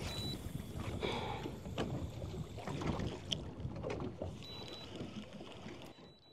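Water lapping and sloshing against a small boat's hull, with scattered light knocks and a little wind on the microphone, fading away near the end.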